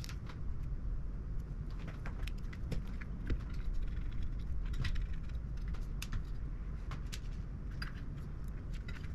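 Light metallic clicks and clinks of hand tools and small parts being handled while a graphics card is taken apart, several a second, over a steady low rumble.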